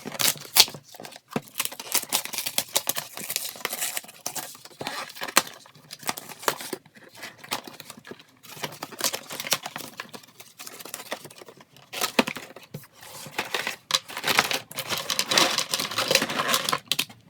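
Toy packaging being opened by hand: cardboard and plastic wrapping crinkling and tearing, with irregular clicks and scrapes, busiest near the end.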